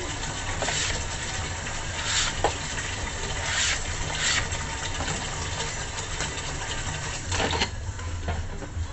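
Several brief swishing strokes of a cloth wiping down a cutting board, over a steady low hum.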